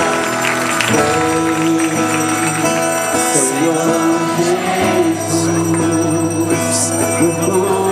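Religious worship music with singing over sustained held chords, with a few short, high jingling shakes through it.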